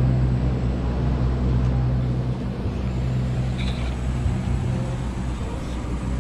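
Steady low machine hum, even in level throughout.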